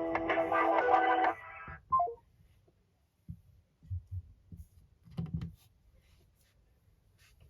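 Mobile phone's call-hold music playing and then cutting off about a second in, followed by a short phone tone of three quick descending beeps. A few soft low thumps follow.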